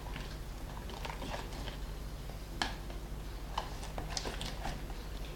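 Homemade glue-and-borax slime being mixed, giving scattered small sticky clicks and squelches with a few sharper ones. The slime is still wet and sticky, not yet set.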